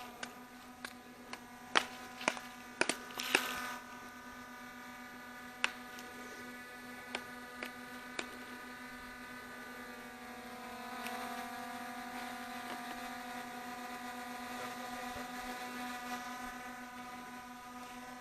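Small camera drone hovering overhead, its propellers and motors giving a steady multi-tone buzz that grows a little louder about eleven seconds in. A series of sharp clicks sounds over the first eight seconds.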